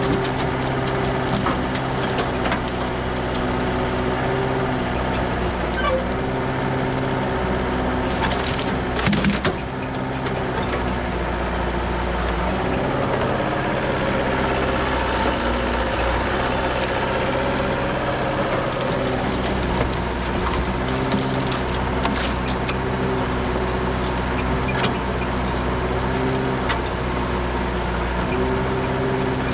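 Kubota mini excavator's diesel engine running under hydraulic load, its note sagging and recovering as the boom and bucket push down, with branches cracking and snapping as brush is crushed into a trailer. The loudest burst of cracking comes about nine seconds in.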